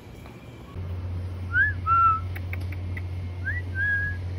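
Someone whistling twice, each time a quick rising note followed by a longer held note, over a steady low hum that starts under a second in.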